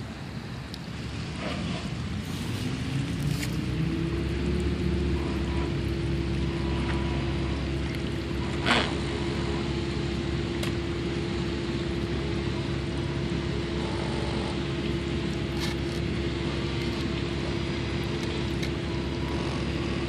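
The small 12 V electric motors and pumps of a homemade RC cargo ship running: a whine that rises in pitch over a couple of seconds, then holds steady over a low hum. One sharp knock about nine seconds in.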